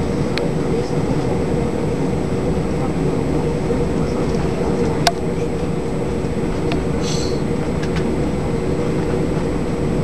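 Steady rumble of an Airbus A319 taxiing, heard from inside the cabin, with the jet engines' even hum under it. A single sharp click about halfway through.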